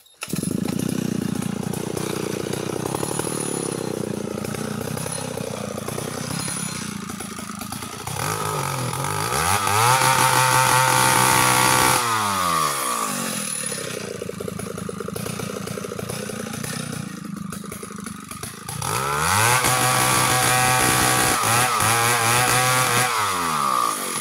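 Stihl 070 two-stroke chainsaw with a 25-inch bar cutting into a tree trunk to fell it. It runs at lower speed at first, then is revved up to full throttle twice, about ten and nineteen seconds in, holding high for a few seconds each time before dropping back.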